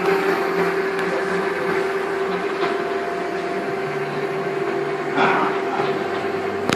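Rebuilt No. 3 centerless grinder running with a steady hum. A short, louder noise comes through about five seconds in.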